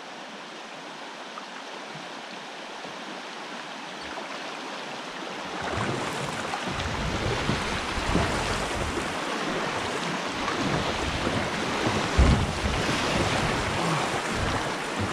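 Shallow river riffle rushing around a kayak, growing louder about five and a half seconds in as the boat runs into the fast water, with a low rumble and a brief louder bump near the end.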